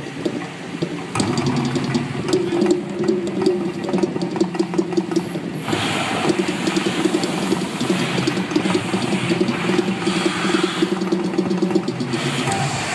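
The Mirage volcano erupting: a loud, low rumbling soundtrack pulses rapidly from the attraction's loudspeakers, and about six seconds in the hiss of gas fire jets flaring up joins it.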